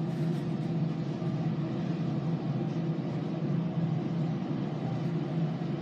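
Lift car travelling between floors: a steady low hum and rumble of the ride, with no change until it arrives.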